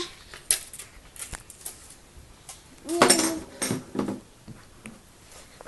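A toddler's short vocal sound about three seconds in, with a couple of weaker ones just after, among light clicks and knocks of toys being handled.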